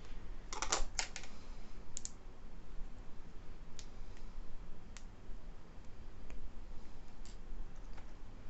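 Light clicks and taps of small plastic parts being handled: a quick cluster of clicks about a second in, then single clicks spaced a second or so apart.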